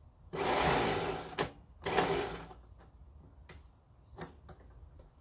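Datsun 1000 starter motor, energised by shorting across it, whirring in two short bursts of about a second and half a second, with several sharp clicks between and after. The starter is not engaging the engine, which the owner suspects comes from worn teeth on the flywheel ring gear.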